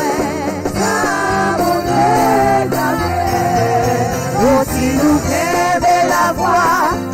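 Gospel worship music: voices singing a slow melody with wavering pitch over instrumental accompaniment with steady low notes.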